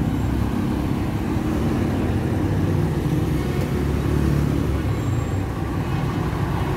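Road traffic on a busy city avenue: a steady rumble of car engines and tyres from vehicles passing close by, swelling as a car goes past a few seconds in.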